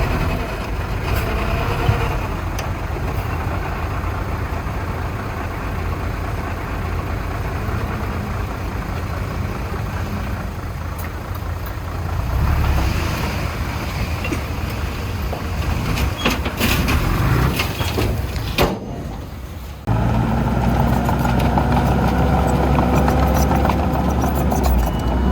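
Heavy diesel machinery running, a steady low engine rumble with a few sharp knocks; about twenty seconds in, it switches abruptly to a steadier engine drone.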